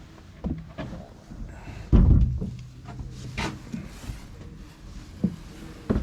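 Scattered knocks and clicks, with one heavy low thump about two seconds in.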